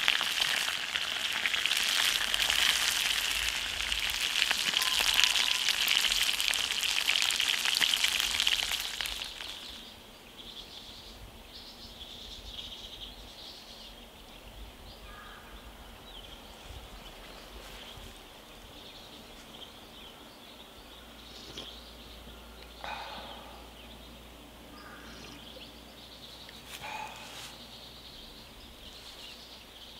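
Starch-coated sandfish frying in oil in a cast-iron skillet: a loud, steady sizzle that cuts off about nine seconds in. A quiet outdoor background follows, with a few short bird chirps and two light knocks near the end.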